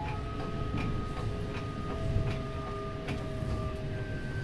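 Electric commuter train running, heard from inside the carriage: a steady low rumble from the wheels on the track, light regular clicks about twice a second, and a motor whine in several steady tones that change pitch in steps.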